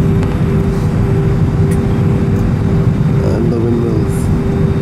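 Steady cabin noise inside an Airbus A320 airliner: a dense low rumble from the running engines and airflow, with a constant hum on top. About three seconds in, a short, faint wavering tone rises above it.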